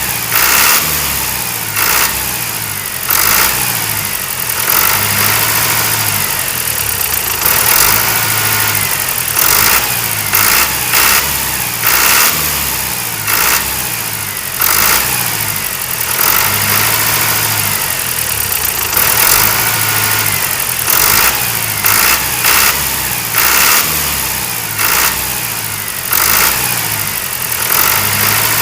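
Engine running steadily at a loud level, with a low pulsing note that repeats every second or two and bursts of high hiss, like a tractor's engine.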